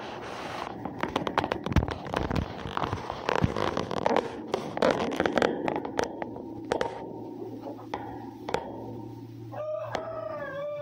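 Dense crackling and rustling, many sharp clicks, for the first several seconds. Near the end a rooster crows, one drawn-out crow in several rising-and-falling syllables.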